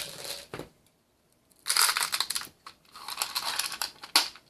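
Loose .22 Long Rifle cartridges clattering and rustling as they are handled and tipped into a clear plastic magazine loader, in two bursts after a short pause, with one sharp click near the end.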